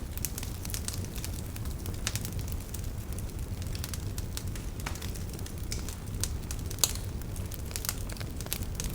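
Fire in a fireplace crackling: a steady low rumble of the flames with frequent sharp pops and snaps, one louder pop about seven seconds in.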